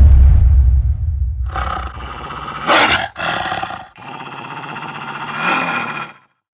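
Logo sound effects: a deep fiery rumble that fades over the first second and a half, then a snarling animal roar in several bursts with short breaks, loudest about three seconds in, cutting off near the end.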